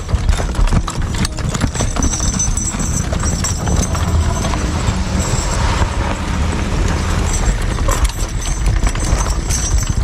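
Hooves of a working logging horse clopping in an irregular run of knocks, over a steady low rumble.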